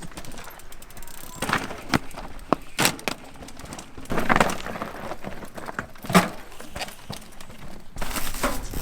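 Mountain bikes clattering over rocky ground: irregular knocks and crunches of tyres, rims and frames on rock, with a longer rattling passage about four seconds in and a sharp hard hit about six seconds in.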